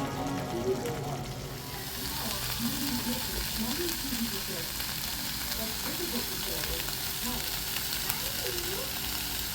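Food frying in a pan: a steady sizzle that grows fuller about a second and a half in.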